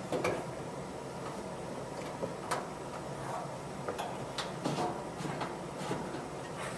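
Scattered light clicks and taps of a water supply hose coupling being handled and screwed onto the connection of a chemical dispenser, about half a dozen over a few seconds.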